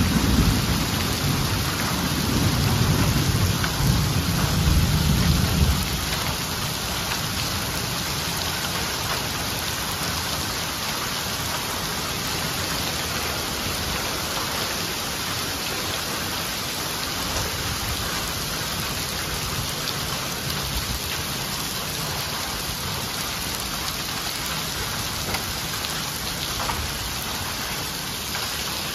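Heavy cloudburst of rain mixed with small hail pelting a paved lot, a steady dense hiss throughout. A deep low rumble underneath dies away about six seconds in.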